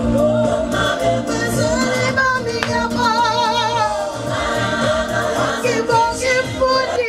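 A woman singing a gospel song live with strong vibrato, over backing music with a bass line. The backing music cuts out suddenly near the end, leaving the voice alone.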